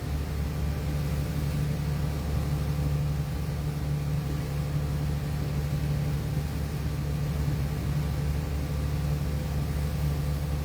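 Boat engine running steadily: an even, low hum with no change in speed.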